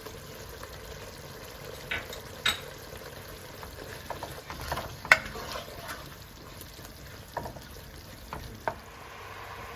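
Spoon scraping and clicking against a pan while stirring grated coconut cooking in jaggery syrup, over a faint steady sizzle. The clicks come irregularly, with the sharpest about five seconds in.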